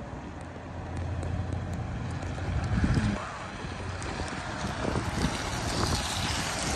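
Keihan route bus engine running as the bus drives slowly up and passes close by, growing louder, with tyre and road hiss rising as it goes by near the end.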